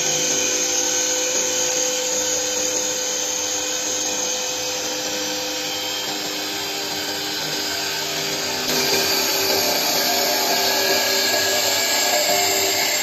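U-UA5025 mini CNC wood turning lathe cutting a spinning wooden makeup-brush handle: a steady whine with the dense hiss of the cutters shaving the wood, growing louder and sharper about two-thirds of the way through.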